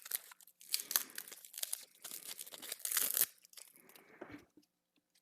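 Packing material being pulled apart and torn open by hand: irregular bursts of tearing and crinkling, loudest about three seconds in, dying away near the end.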